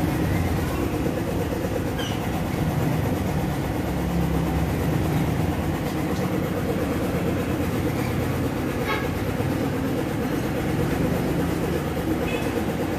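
Steady mechanical rumble with a fast rattling flutter, a machine running throughout, with a few faint light clicks on top.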